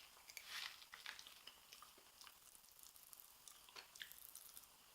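Pop Rocks popping candy crackling faintly in the mouth while being chewed: scattered small, sharp pops and crackles.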